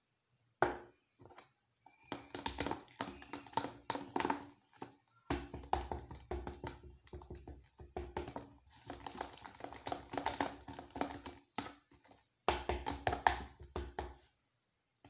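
Slime being stirred with a utensil in a container, the detergent activator being worked into wood glue: irregular tapping and scraping strokes in bursts, with a short pause about five seconds in and another near the end.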